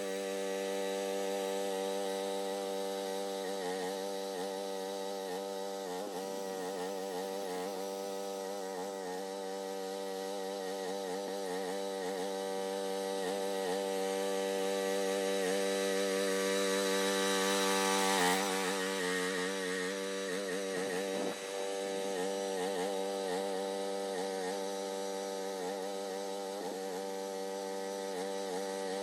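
Groundhog mini excavator's small engine running steadily at high speed, its pitch dipping and wavering now and then under load while grading dirt. A brief louder rush of noise comes about eighteen seconds in.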